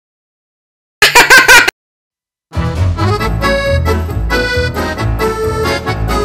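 A short burst of laughter about a second in, between two gaps of silence, then background music with a steady beat starts about two and a half seconds in.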